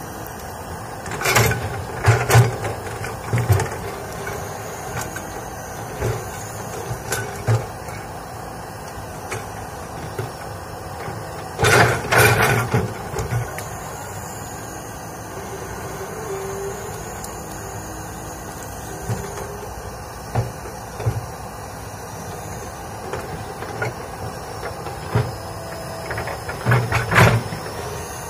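Komatsu crawler excavator's diesel engine running steadily as it digs, with loud knocks and cracks now and then, clustered about a second in, around twelve seconds in and near the end, from the bucket striking earth and breaking brush.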